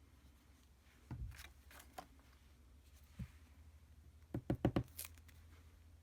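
Paper and craft supplies handled on a work table while a piece is glued on: a few soft knocks, then a quick run of four or five sharp taps about four and a half seconds in.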